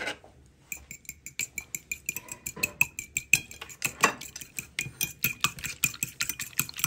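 A fork beating a raw egg in a plate: quick clinking taps of the fork against the plate, several a second, starting about a second in.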